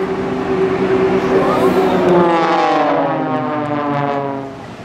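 Four Extra 300 aerobatic propeller planes flying past, their engine drone falling in pitch as they go by and fading near the end.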